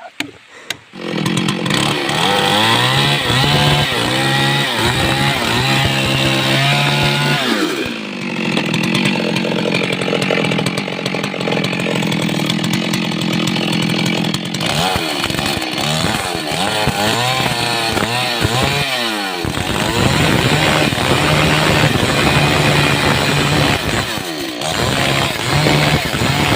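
Stihl MS 382 two-stroke chainsaw running at high revs and cutting wood. It starts up about a second in, and its engine speed drops and climbs back several times as the throttle is eased and the chain bites.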